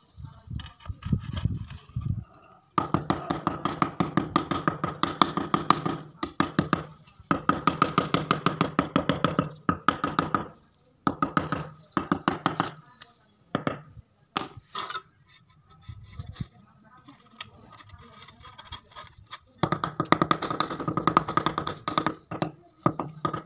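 Hammer tapping a parking tile down into its wet mortar bed to level it: quick, even runs of taps at about five a second, in three bursts of a few seconds each, with a few single taps between.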